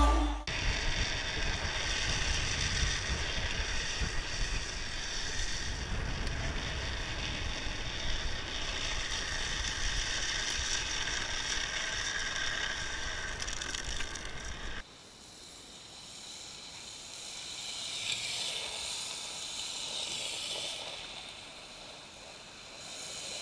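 Drift trike riding on asphalt: a steady rattling, scraping roll of its hard rear wheels with a low rumble. It cuts off suddenly about 15 seconds in, giving way to a quieter rolling sound that swells and fades.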